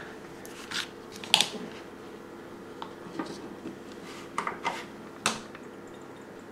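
Several light, scattered clicks and taps of small nail tools and items being handled on the worktable, over a faint steady hum.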